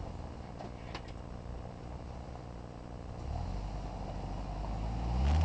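Hummer H3 engine through its Magnaflow exhaust, running at low revs as the truck crawls off-road, then getting louder and revving up near the end as it pulls forward. A couple of faint clicks about a second in.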